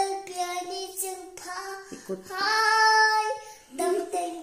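A three-year-old girl singing unaccompanied, with a long held note about halfway through.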